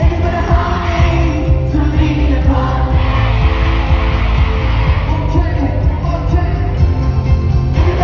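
Live pop music played loud over an arena sound system, with a heavy, steady bass beat and singing.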